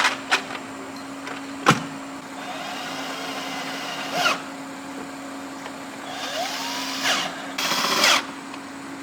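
A handheld power tool runs in several short spurts, its pitch rising as it spins up, with sharp metal clinks of tools near the start, over a steady low hum.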